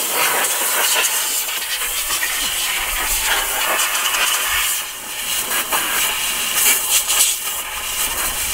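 Compressed air hissing steadily from an air-hose blow nozzle, blasting dirt and rat droppings out of a snowmobile's engine compartment. It eases off briefly about five seconds in.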